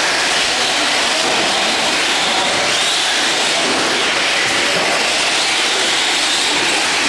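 Radio-controlled race trucks running on the track: a steady, loud, hissing rush of motor and tyre noise with no clear engine pitch.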